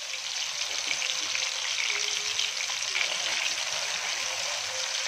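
Masala-coated ivy gourd slices deep-frying in hot oil on a high flame, a steady, dense crackling sizzle as their moisture boils off just after going into the oil.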